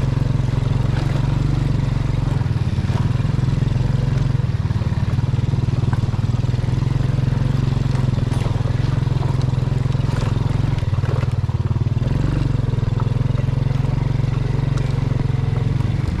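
Motorcycle engine running steadily with a low, even drone while riding over a rough dirt track, with scattered light clicks and rattles.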